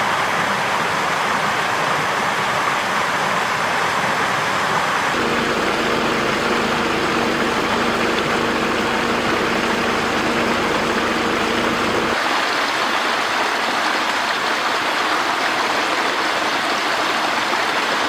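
A small forest stream cascading over rocks: steady rushing and splashing water. The water sound changes character about five seconds in and again about twelve seconds in, and a faint steady low hum runs beneath it in the middle stretch.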